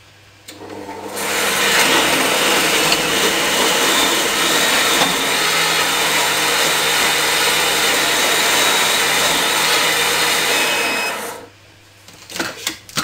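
Mycook kitchen robot running at speed 7, its blades mixing a paste of minced hake, bread, milk and cheese. The motor spins up about half a second in, runs steadily for about ten seconds and stops abruptly, followed by a few clicks near the end.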